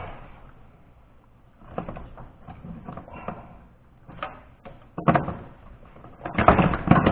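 Hand work in a truck's engine bay during reassembly: irregular clicks, knocks and rustles of parts and tools being handled, with the loudest cluster of knocks near the end.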